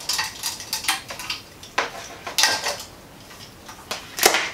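Ring light tripod stand and its fittings clinking and rattling as they are handled and twisted together during assembly: a string of short, sharp clicks and knocks, with two longer clattery bursts.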